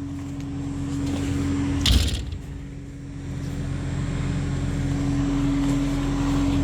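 A steady engine hum, an engine idling evenly, with a short hissing rustle about two seconds in.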